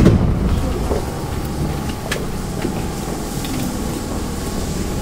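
Osaka Metro Midosuji Line 10 series (IGBT inverter) subway train running, heard from inside the car: a steady low rumble of wheels and running gear, with a brief thump at the start.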